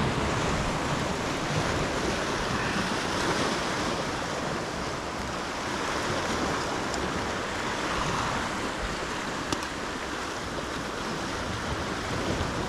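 Sea surf washing and breaking against the rocks below in a steady rush, with some wind on the microphone. One brief click about three-quarters of the way through.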